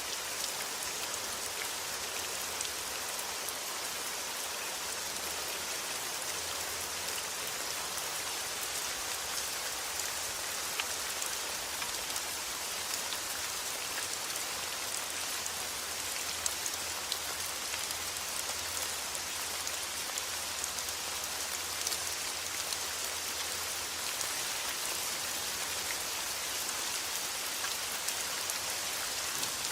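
Steady rainfall with a dense pattter of drops hitting a surface, as an even hiss with small individual drop ticks.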